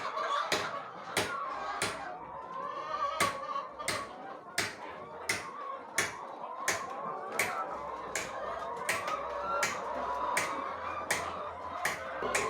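Regular sharp knocks, about three every two seconds, over a continuous busy background of high, wavering chirping or chatter.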